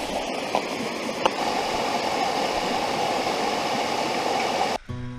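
Steady rush of flowing water from the river and falls, cutting off suddenly near the end.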